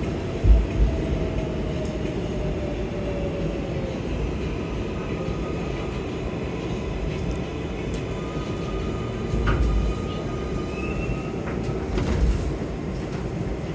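R188 subway car on the 7 line slowing to a stop at a station platform: a steady rumble of wheels on rail, with a motor whine that falls slowly in pitch over the first few seconds. A low bump comes about half a second in, and faint higher whines sound around ten seconds in as it comes to a halt.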